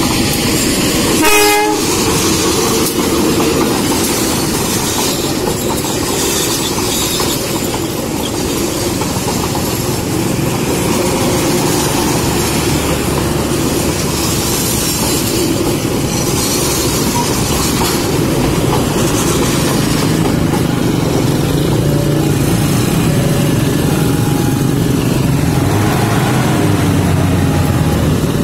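Passenger train running through a level crossing: a steady rumble of wheels with clatter over the rail joints. A brief train horn blast sounds about a second in.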